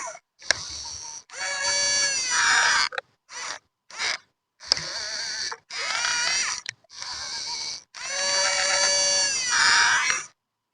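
RC model excavator's motors and hydraulic pump whining as it works, in about eight short runs of a few tones at once, some wavering in pitch, each stopping abruptly.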